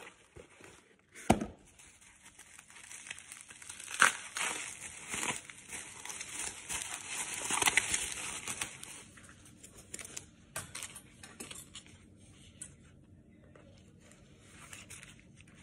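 Cardboard box and bubble wrap crinkling and rustling as a package of cards is unpacked by hand, with a sharp knock about a second in and another about four seconds in. The crackling is densest in the middle and thins to scattered soft rustles near the end.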